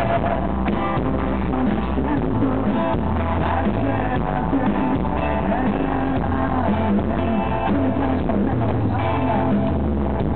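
Live rock band playing loud and continuous: a male singer over electric guitar, bass guitar and drum kit.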